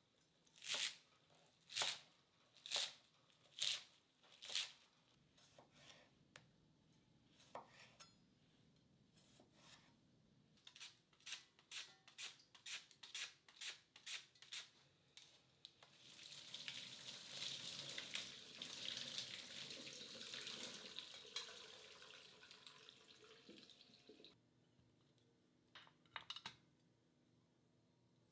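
Kitchen knife chopping through a bunch of mizuna onto a cutting board, five slow strokes about a second apart, followed by a quicker run of strokes of a handheld slicer working a daikon at about two a second. A steady hiss then runs for several seconds, and a couple of light clicks come near the end.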